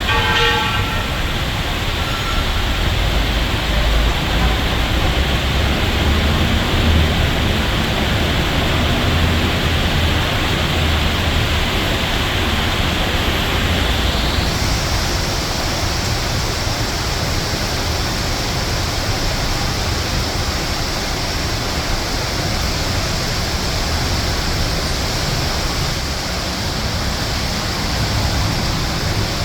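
Heavy tropical rain falling steadily, an even hiss, with the low rumble of traffic on the road below. About halfway through the hiss turns brighter.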